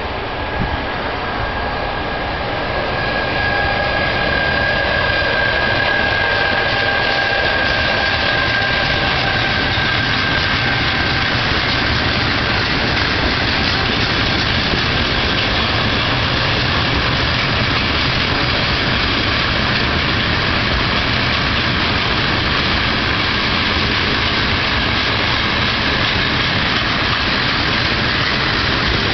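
Freight train of open box wagons rolling past, a steady loud rumble of wheels on the rails that builds over the first few seconds and then holds. A high whine rises and fades away over roughly the first ten seconds.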